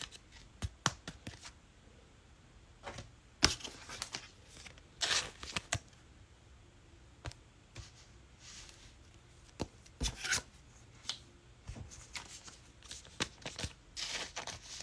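Sports trading cards being handled on a table: scattered light clicks and taps, and short swishes of cards sliding against each other.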